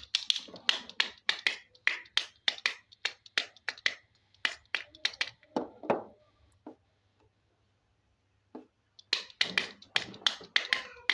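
Hands tapping and clicking on hard objects: a fast, uneven run of sharp taps, a pause of about two seconds, then another run of taps near the end.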